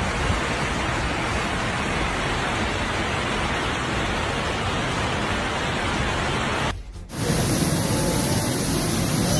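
Heavy rain in a downpour, a steady hiss. It drops out for a moment about seven seconds in, then comes back louder and deeper as a fuller rush of pouring rain.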